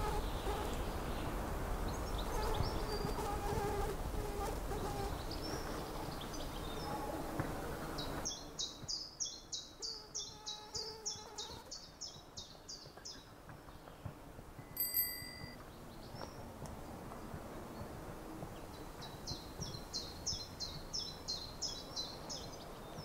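Outdoor background of low rumbling noise with faint scattered bird chirps, then, after an abrupt change about eight seconds in, a bird giving two runs of fast, repeated high chirps, about three a second. A single short bell-like ding sounds between the two runs.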